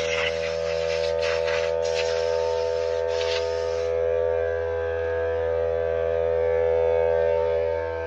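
A steady machine hum made up of several held tones, with a hiss over it for the first four seconds that breaks off briefly a few times and then stops.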